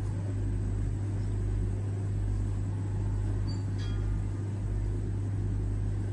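Steady low hum with a rumble beneath it, unchanging throughout, with a faint brief rattle about four seconds in.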